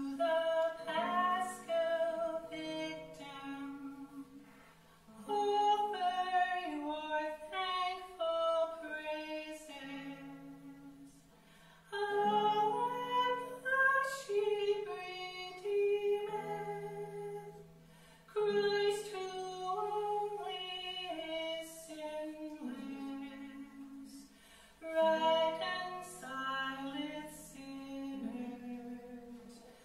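Slow live music: a melody of held notes in phrases, each phrase starting loud and fading away over several seconds.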